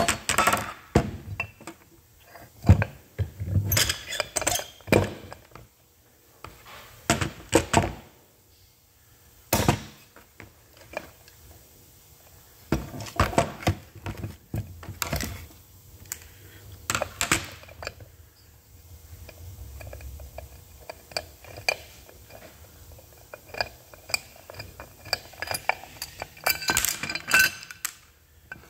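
Metal parts of an electric brake motor being handled and set down on a workbench during disassembly: irregular clunks, knocks and clinks in scattered bursts.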